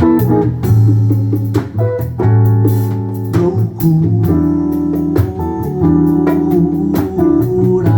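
Band music between sung lines: guitars and bass playing over a steady drum beat.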